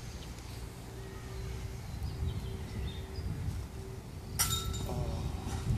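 A disc golf disc striking a metal chain basket about four seconds in, a sudden metallic clink and rattle that rings on briefly. Wind rumble on the microphone throughout.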